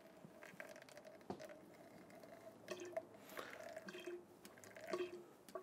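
Faint, irregular dripping and trickling of fork oil from an upturned Marzocchi MX Comp suspension fork leg into a glass jar, with small plinks as the drops land. The fork has open oil baths, so the oil runs out once the top cap is off.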